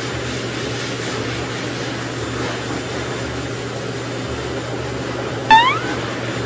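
Pet blower dryers running steadily, a constant rush of air with a low hum, blowing a freshly bathed husky puppy's coat dry. About five and a half seconds in, a short rising whine cuts through.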